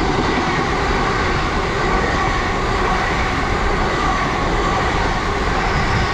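Nine-coach intercity passenger train passing through the station, a steady loud rumble of wheels on the rails.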